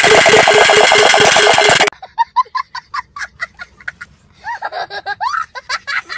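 Street band drums beating fast and even, cutting off suddenly just under two seconds in. A small child then laughs in short giggles, rising into higher, squealing laughs near the end.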